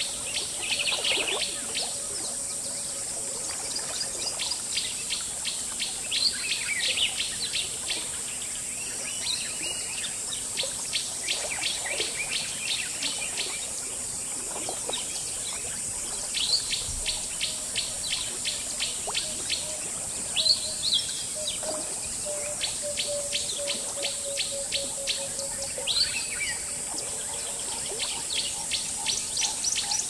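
Jungle ambience: a steady high insect drone with long runs of rapid, even insect chirping. Scattered short bird calls and a faint low steady tone come and go.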